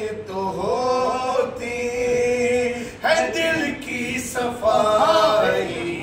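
A man singing a line of an Urdu devotional poem (kalaam) unaccompanied, in a slow, drawn-out melodic style with long held, wavering notes, in three phrases with short breaths between them.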